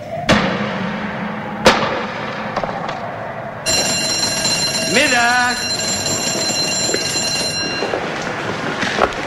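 Two sharp knocks, then a steady, high-pitched workplace break signal sounds for about four seconds, announcing the lunch break. A man shouts "Mittag!" over it.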